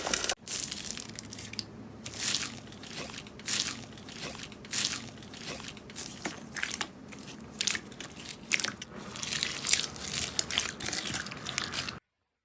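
Slime being squeezed and pressed by hand, giving irregular short crackles and pops, several a second, which stop suddenly just before the end.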